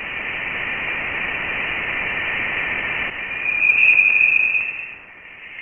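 Sonified Voyager 1 plasma-wave data: a steady hiss confined to a narrow band, with a whistling tone swelling out of it about three seconds in and fading near the end. The tone is the oscillation of dense interstellar plasma set ringing by a solar eruption.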